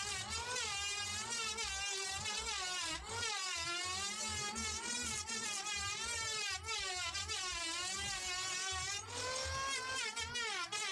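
Background music: a wavering, melodic lead line over a low pulsing beat.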